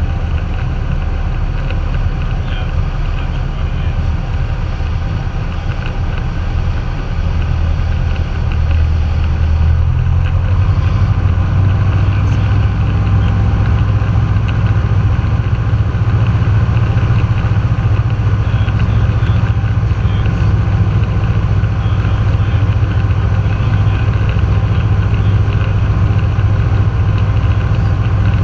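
Cessna 172's piston engine and propeller droning steadily, heard from inside the cabin. About ten seconds in the drone rises in pitch and gets louder as the engine speeds up, then holds steady at the higher setting.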